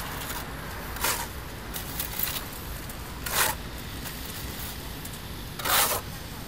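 Steel trowel scraping fast-setting stucco mud off a hawk and pressing it onto a concrete wall: three short scrapes a couple of seconds apart, the last the longest and loudest, over a steady low rumble.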